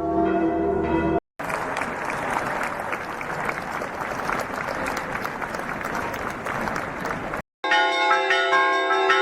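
Church bells in three separate clips cut together. First a big bell ringing, then about six seconds of a dense clattering wash with no clear pitch, then a peal of several bells struck one after another in changes.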